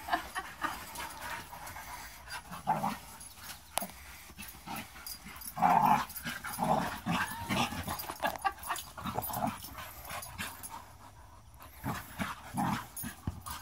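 Two dogs play-fighting, with short irregular bursts of dog vocal noises and panting, loudest about six seconds in.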